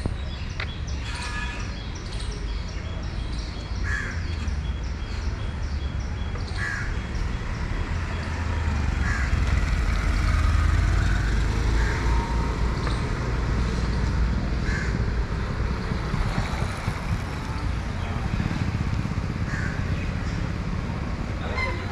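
Crows cawing, single caws every two or three seconds, over a steady low rumble of street traffic.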